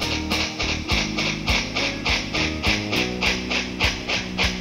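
Background music: guitar over a steady, even beat.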